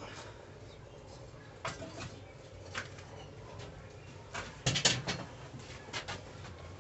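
Metal casting tools being handled: scattered knocks and clinks, with a cluster of louder ones about five seconds in, over a low steady hum.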